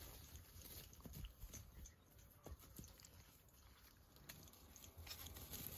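Near silence: a faint low rumble with a few scattered faint ticks.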